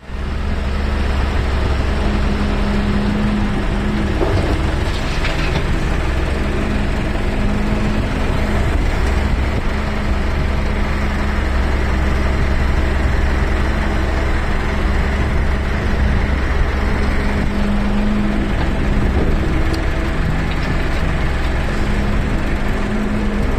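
Doosan hydraulic excavator's diesel engine running steadily while working, a constant low drone with a tone that swells and eases as the boom and bucket move.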